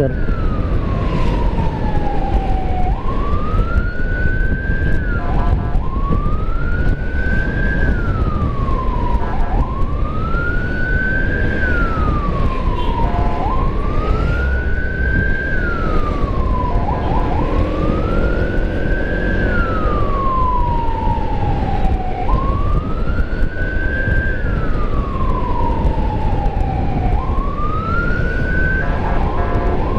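Emergency vehicle siren wailing in slow cycles of about four seconds, each rising quickly, holding briefly and falling away, with short stuttering chirps at some of the turns. Under it runs a steady heavy rumble of wind and motorcycle engine at riding speed.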